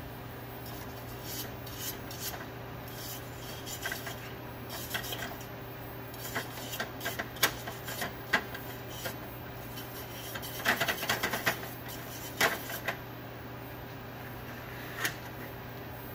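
A hand tool scraping and rubbing against the end of an aluminum exhaust elbow in short, irregular strokes with a few sharper clicks, densest about two-thirds of the way in. A steady low hum runs underneath.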